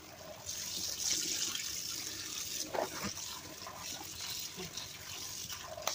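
Kitchen tap running into a stainless steel sink, the stream splashing onto raw chicken wings being rinsed by hand in a plastic tub. The water gets louder about half a second in and then runs steadily.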